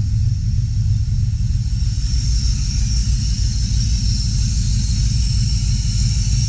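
Chevrolet 350 small-block V8 idling, a steady deep rumble.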